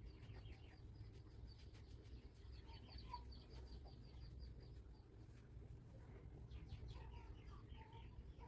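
Near silence with faint birds chirping in the background: quick strings of short high chirps about three seconds in and again around seven seconds in, over a low steady background noise.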